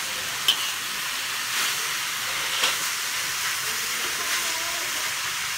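Vegetables and minced pork sizzling in a hot wok while a metal spatula stirs and tosses them, with a steady hiss and a few sharp clinks of the spatula on the pan, the loudest about half a second in.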